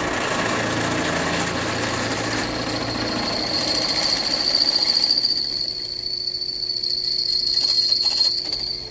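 Bench drill press running, loud and steady; about three and a half seconds in a high-pitched whine comes in and holds, then the sound cuts off suddenly near the end.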